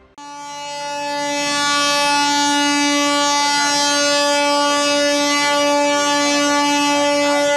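Train horn sounding one long, steady note that comes in suddenly and builds over the first two seconds.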